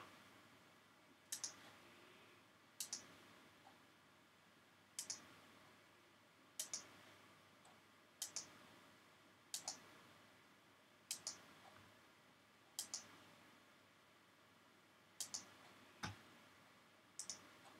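Faint computer mouse button clicks, most of them in quick pairs, about every second and a half.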